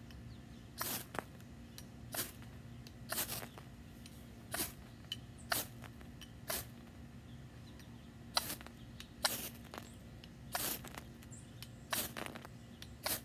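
Knife spine scraped hard down a ferrocerium fire steel to throw sparks: about a dozen short, sharp rasping strikes, roughly one a second.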